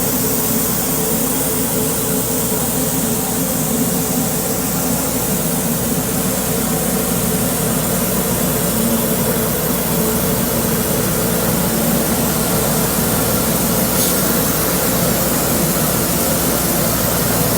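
Metal-cutting CNC machine running steadily: a constant hum with several steady low tones and a hiss over the top.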